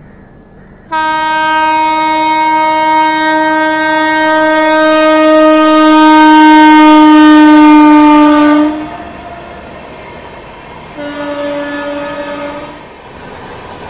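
Electric locomotive horn of a passing Howrah–New Delhi Rajdhani Express: one long blast of about eight seconds, its pitch slowly falling as the train goes by, then a second, shorter and quieter blast near the end, over the running noise of the trains.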